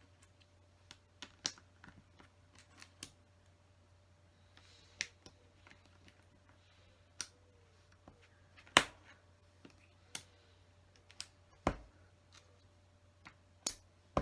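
LEGO plastic pieces being handled and pressed into place: irregular small clicks and taps, with two louder knocks about nine and twelve seconds in, over a faint steady hum.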